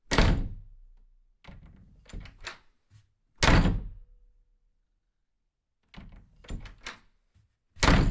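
Three heavy thuds about four seconds apart, each one sharp and dying away over about a second, with clusters of lighter knocks between them.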